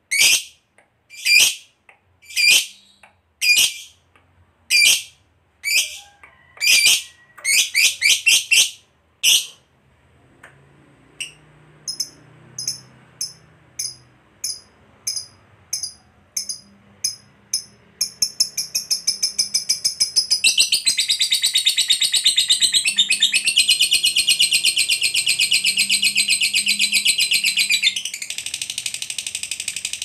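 Lovebird calling: loud sharp shrieks about one a second that speed up into quick runs, then a quieter stretch of fast, thin high chirps. A little past halfway it breaks into a long, unbroken, rapid chattering trill, the 'ngekek panjang'.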